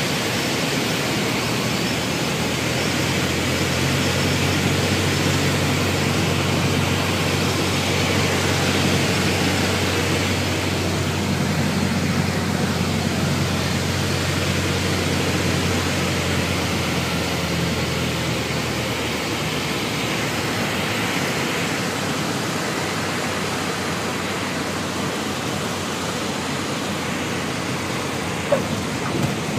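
Cabin noise of a single-engine propeller airplane: a steady rushing noise from the piston engine and propeller, with a low engine drone that fades about two-thirds of the way through. A brief click near the end.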